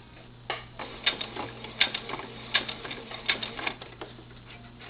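Singer sewing machine stitching slowly in short runs, its needle making sharp, irregular clicks over a steady low hum, while back stitches are sewn to secure the velcro end.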